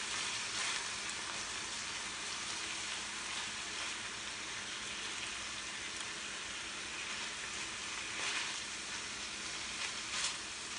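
Chicken pieces sizzling steadily in a stainless steel sauté pan, with a few brief sounds of the utensil stirring and turning them.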